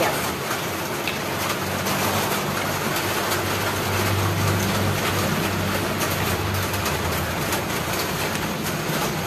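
Steady low hum and hiss with light scrapes of a metal ladle stirring coconut milk and sugar in an aluminium wok. The hum swells a little about halfway through.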